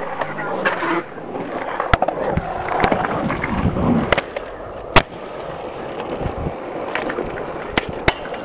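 Skateboard wheels rolling on concrete, with several sharp wooden clacks from the board popping and landing.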